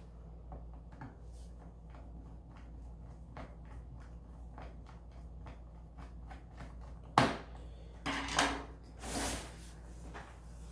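Light repeated ticking of a small screwdriver driving screws into a laptop's bottom case, then a sharp knock about seven seconds in, followed by a couple of louder bouts of handling noise.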